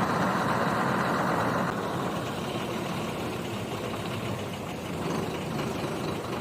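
Truck engine idling steadily, a little louder for the first couple of seconds.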